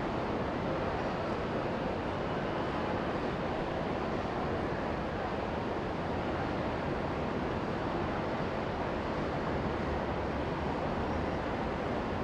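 Steady, even rushing noise with no distinct events or changes.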